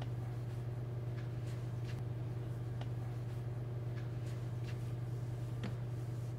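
Steady low hum of a running convection microwave, with a few faint light knocks and clinks of a pot and cookware being handled.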